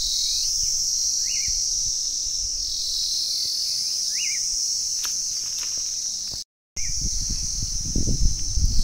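Steady high-pitched chorus of insects, with a few short rising bird chirps over it. A low rumble, like wind on the microphone, comes in near the end.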